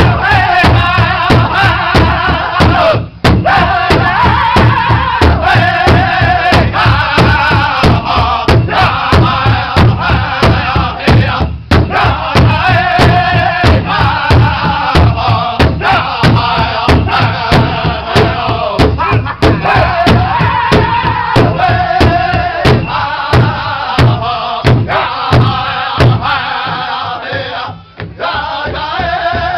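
A powwow drum group: several men striking a large hide-covered drum together in a steady, driving beat while singing in unison. The beat breaks off for a moment three times.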